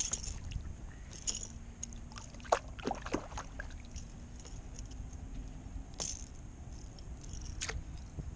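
Scattered small clicks and knocks of fishing gear being handled aboard a plastic sit-on-top kayak while a caught trout is put on a stringer. They fall over a steady low background rumble.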